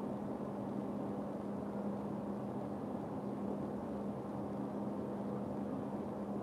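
Steady background hum, a constant low tone over an even low rushing noise, with nothing sudden standing out.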